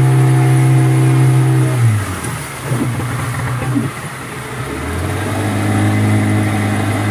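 A boat's outboard motor running at a steady speed, then easing off about two seconds in, its note dropping and turning uneven. Near five seconds in it picks up again and holds a steady, slightly rising note.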